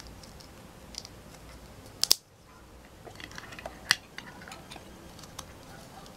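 Small hard-plastic Playmobil toy parts clicking and tapping as a hanger and rod are fitted into a toy clothes rack. The clicks are scattered, and the loudest are a double click about two seconds in and a single sharp click about two seconds later.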